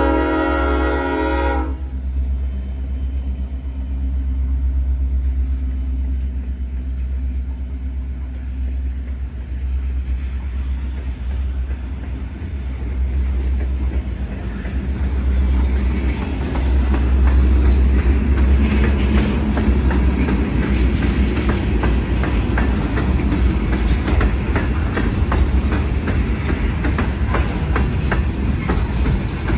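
Diesel freight train passing close by: the locomotive's horn blast cuts off about two seconds in, leaving a deep steady rumble. Loaded hopper cars then roll past, with wheels clicking over the rail joints that grows louder and denser in the second half.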